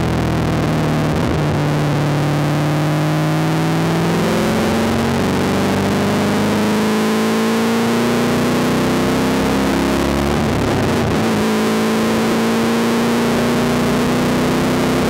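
V8 race car engine under load, heard from inside the cabin. Its note climbs steadily over several seconds at a time, with brief breaks about four seconds in and again about ten seconds in.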